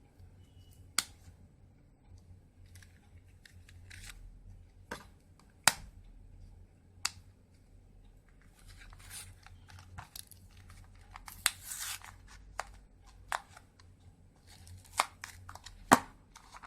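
Sealed product packaging being cut open with scissors: sharp separate snips and clicks a second or more apart, with stretches of tearing and rustling packaging in the second half.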